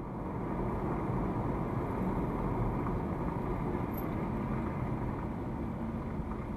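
Car driving on a city street, heard from inside the cabin through a dashcam: steady engine and road noise.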